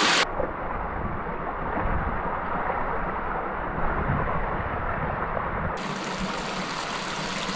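Steady rushing water of a spring-fed creek and falls. From about a quarter second in until near six seconds it turns muffled and boomy with a deep rumble, then becomes clear and hissing again.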